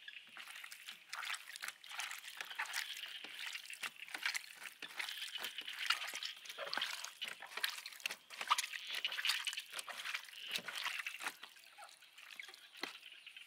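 Wet squelching and slapping as bare hands knead raw pork intestines coated in soy and oyster sauce on a metal tray, a dense run of small irregular wet clicks that eases off near the end.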